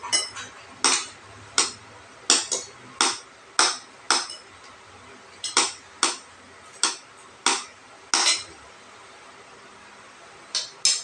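Cutlery clinking against a dish during a meal: a run of sharp, ringing clinks, roughly one every half second to second, broken by a short pause around the middle and a longer lull near the end.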